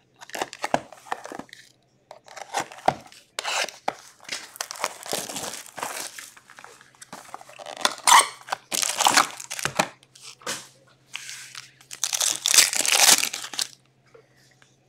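Wrapping and foil packs of an Upper Deck Allure hockey card box being torn open, in repeated crinkling, tearing bursts of uneven length.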